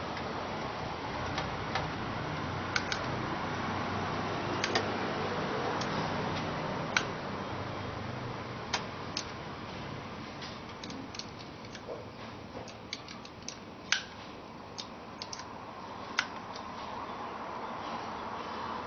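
Scattered light clicks and taps, irregular and a second or more apart at most, over a steady background hiss.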